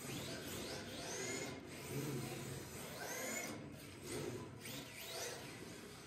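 Rear-wheel-drive electric RC drift cars drifting on carpet: the motors give repeated rising whines with each burst of throttle, over a steady rasp of the hard drift tyres sliding on the carpet.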